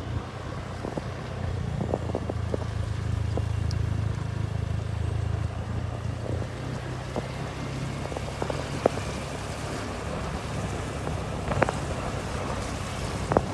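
Motorcycle engine running low and steady, with wind rushing over the microphone while riding. The engine hum fades about halfway through, leaving mostly wind and road noise, with a couple of light knocks near the end.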